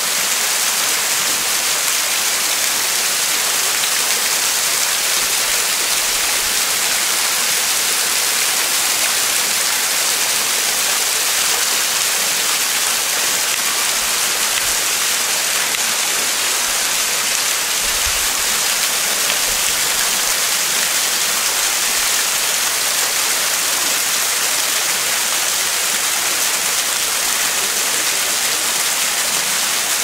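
Waterfall splashing steadily, a constant even hiss of falling water with water still running between the ice.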